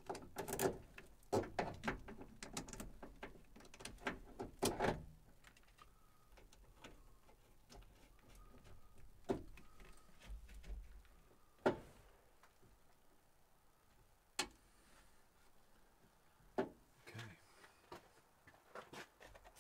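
Hand tools and small metal parts clicking and knocking as they are handled. There is a quick cluster of sharp clicks over the first few seconds, then single knocks a few seconds apart.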